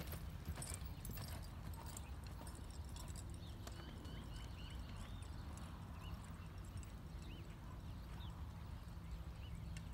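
Hoofbeats of a loping horse on loose arena dirt, loudest in the first couple of seconds as it passes close and then fainter as it moves away. A steady low rumble runs underneath.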